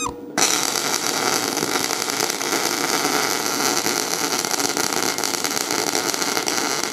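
MIG (semi-automatic, CO2-shielded) welding arc crackling steadily on steel plates, starting about half a second in. The wire feed speed has been raised with the welding current unchanged, too much wire for the current, which lays down an oversized bead.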